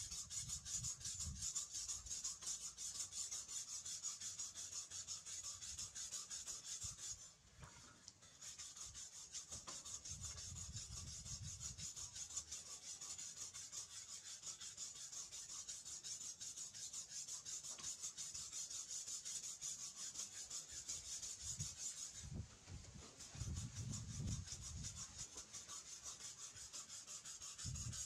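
Steel blade cut from a motorcycle brake disc being sharpened by hand on a wet whetstone: rapid scraping strokes of steel on stone, stopping briefly twice.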